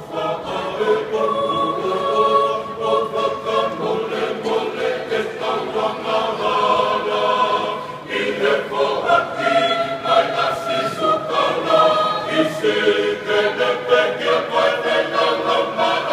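Tongan church choir of men and women singing a hymn together in harmony, voices held on long notes, with a short break between phrases about halfway through.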